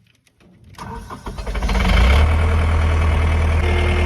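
A few light clicks, then a John Deere skid steer's diesel engine cranks and catches about a second and a half in, surging briefly before settling into a steady idle.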